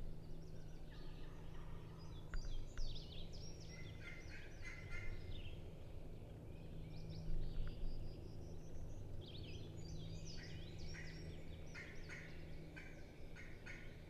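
Wild turkey gobbling, a series of rapid rattling calls in two bouts: a few seconds in, then again from past the middle onward, with songbird chatter mixed in.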